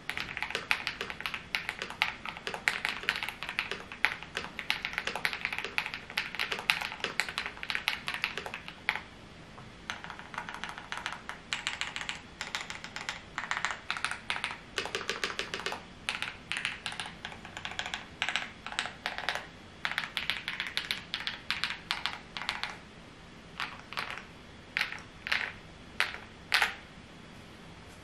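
Typing on a custom KBD67 Lite 65% mechanical keyboard, its keys clacking in a creamy way: fast dense runs of keystrokes with a short break about nine seconds in, then slower single presses near the end.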